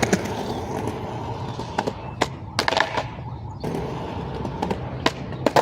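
Skateboard wheels rolling on concrete with a steady rumble, and a series of sharp clacks and knocks from the board hitting the ground.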